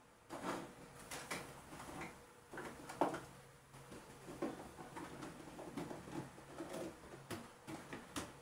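Irregular light knocks and clatter of objects being handled and set down, the loudest about three seconds in, over a faint steady hum.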